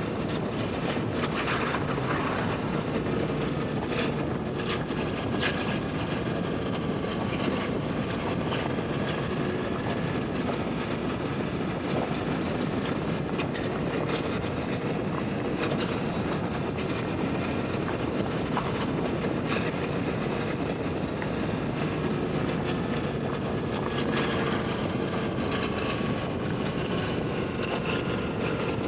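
Motorcycle under way: a steady mix of engine and road-and-wind noise on a bike-mounted camera microphone, with the engine note drifting slowly up and down in pitch.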